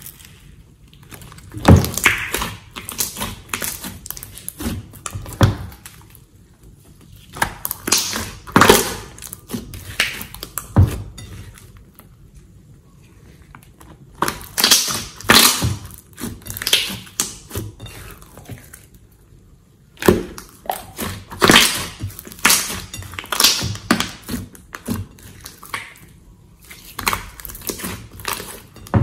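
Thick slime being stretched, dropped and folded by hand in a glass bowl: sticky clicks, pops and squelches, in about five bursts separated by short quiet gaps.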